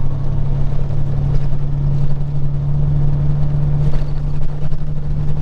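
Peterbilt 379 semi truck's diesel engine running at a steady drone while driving, heard inside the cab.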